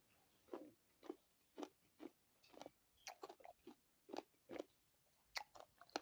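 A person chewing fruit: faint crunching and mouth sounds at about two chews a second.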